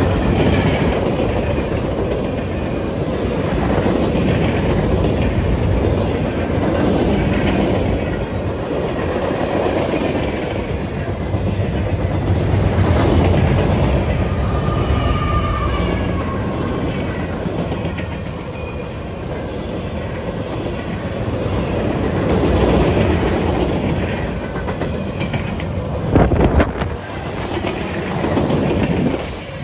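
Freight train passing close by: a steady rumble of steel wheels with clickety-clack over the rail joints, a short high squeal around the middle, and one sharp clank near the end.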